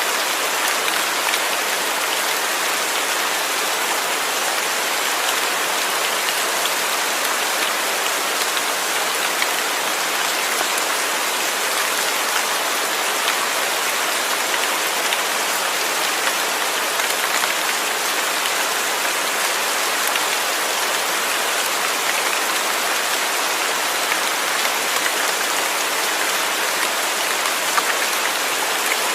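Steady rain falling, a dense even hiss of drops pattering on a surface, with no thunder.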